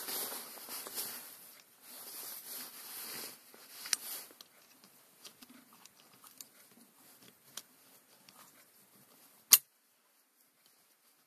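Rustling handling noise, then scattered small metallic clicks as snap-ring pliers work a snap ring onto a tractor's Multi Power input shaft assembly. One sharp, loud click comes near the end.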